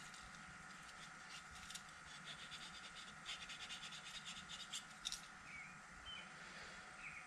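Faint rapid scratching and clicking of small carburetor jets being worked by hand, about four or five strokes a second and busiest in the middle, over a faint steady hum. A few faint short chirps come near the end.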